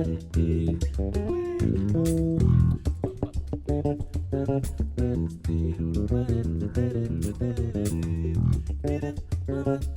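Bass guitar playing a fast baião tune in quick plucked runs, with percussion accompaniment.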